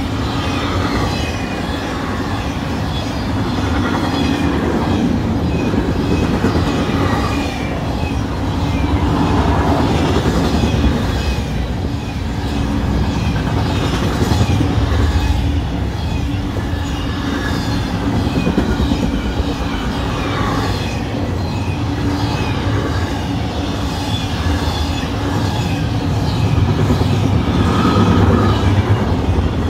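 Double-stack intermodal freight train's container cars rolling past: a steady rumble with the clickety-clack of wheels over rail joints, and short high squeals from the wheels now and then.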